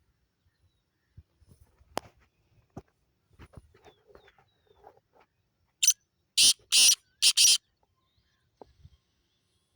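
Black francolin (kala teetar) calling: a rapid series of about five loud, harsh, grating notes lasting under two seconds, coming about six seconds in, after faint scattered clicks and rustles.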